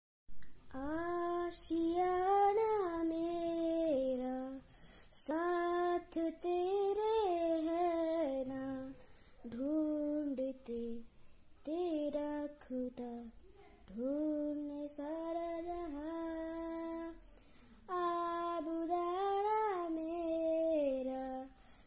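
A boy's unaccompanied voice singing a slow melody in phrases a few seconds long, with held notes and short pauses between them.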